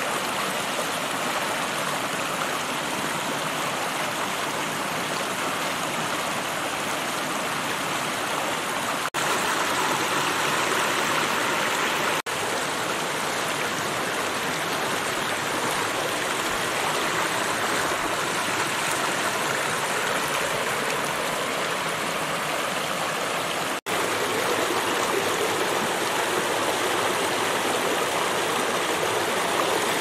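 Shallow rocky stream flowing steadily over stones, an even rush of water that breaks off for an instant three times.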